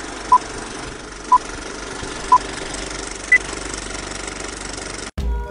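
Film-leader countdown sound effect: a film projector's steady clatter with a short beep every second, four beeps in all, the last one higher. Near the end the clatter cuts off and a low boom opens into music.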